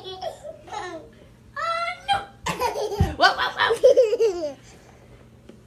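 Toddler laughing in repeated bursts of high-pitched giggles, in three bouts and loudest about three to four and a half seconds in, with a soft thump about three seconds in.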